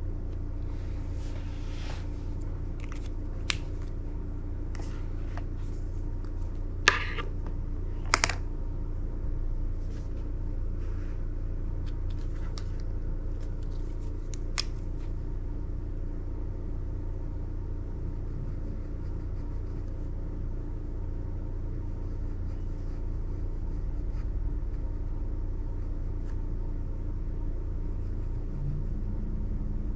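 Fine-liner pen nib ticking and scratching on sketchbook paper in short strokes, with two sharp clicks about seven and eight seconds in. After that only a steady low rumble remains.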